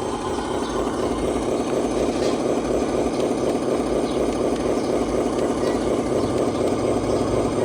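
Radio-controlled truck running with a steady, even engine-like drone.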